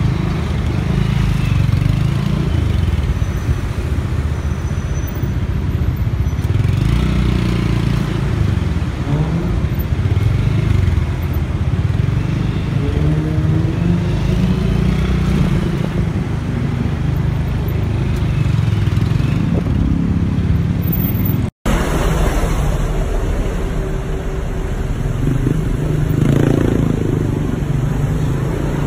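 Motorcycle taxi ride heard from the pillion seat: the motorbike's engine running through slow city traffic, a steady low rumble mixed with road and traffic noise. It drops out for an instant about two-thirds of the way in.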